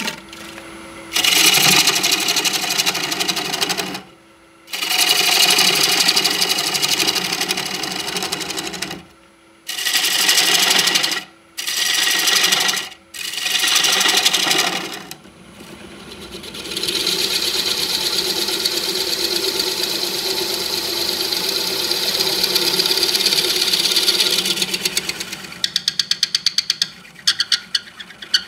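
A power tool motor starting and stopping in a string of short bursts, then a longer steady run that breaks into a quick series of sharp regular clicks near the end.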